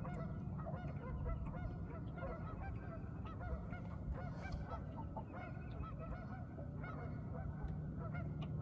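A flock of geese honking continuously, many short overlapping calls at once.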